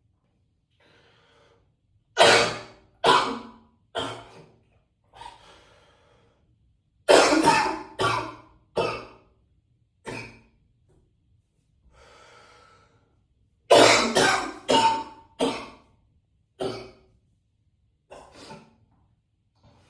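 A man coughing hard in several fits of three or four coughs, each fit tailing off, with single coughs between and audible breaths drawn in the pauses. The coughs echo in a small bathroom.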